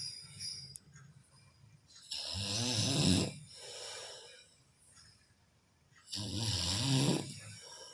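A person snoring: two long snores about four seconds apart, each lasting about a second, with softer breathing between them.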